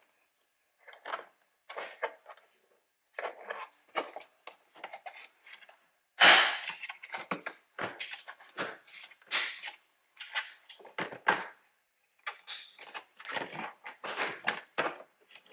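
Plastic rear quarter trim panel of a Toyota RAV4's cargo area being pulled loose by hand: a string of irregular plastic knocks, creaks and clicks as its clips give way, the loudest a sharp crack about six seconds in.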